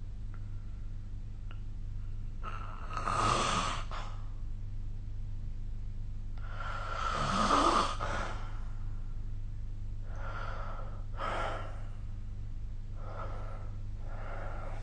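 A sleeping person snoring, with four loud noisy breaths about three to four seconds apart. The second breath, about seven seconds in, is the loudest.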